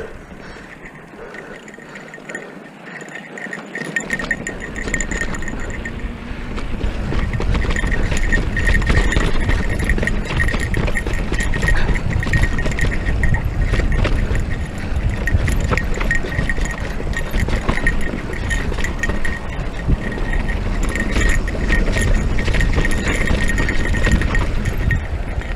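Haibike electric mountain bike ridden over a rocky trail: the bike rattles and the tyres knock on rock, with wind rumbling on the microphone from about four seconds in as the speed picks up.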